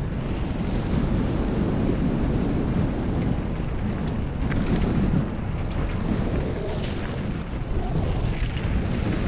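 Wind buffeting the microphone of a mountain bike rider descending a dirt trail, over the steady rumble of knobby tyres on the ground, with a few light clicks around the middle.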